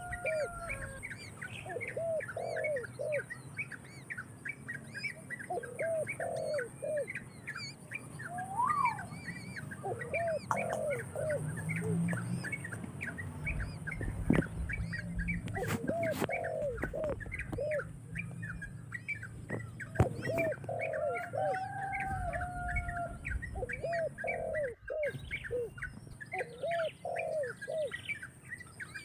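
Several birds chirping and calling continuously: many short high chirps over repeated lower calls in short groups. A few sharp knocks come about halfway through.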